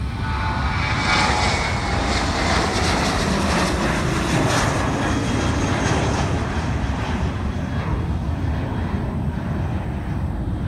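Jet engines of a Boeing 737-800 at takeoff power, climbing out overhead: a loud steady rumble with a whine that falls in pitch over the first few seconds.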